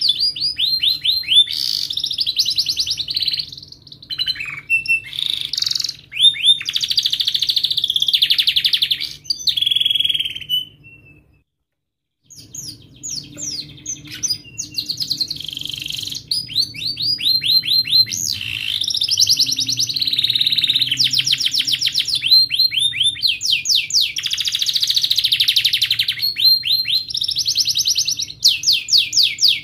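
Domestic canary singing: long rolling trills of rapidly repeated sharp notes mixed with chirps. The song stops for about a second near the middle.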